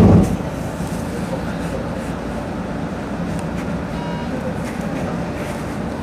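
Odakyu 3000 series electric train running, a steady rumble of wheels and motors, with a short heavy thump right at the start.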